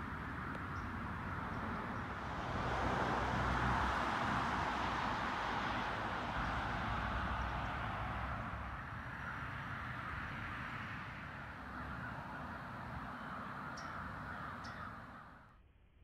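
A large flock of birds calling all at once, a dense continuous chatter over a low rumble, growing louder about three seconds in and fading out near the end.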